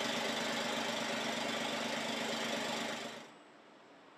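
Car engine running on an automated test rig: a loud, steady, fast mechanical clatter. It cuts off about three seconds in, leaving a faint factory hiss.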